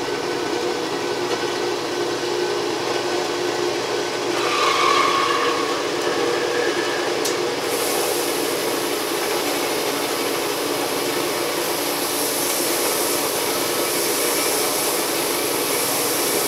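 Horizontal metal-cutting bandsaw running, its blade sawing through thick round aluminium bar stock, with a steady motor hum under the cutting noise. A high hiss from the mist coolant spray joins about seven and a half seconds in.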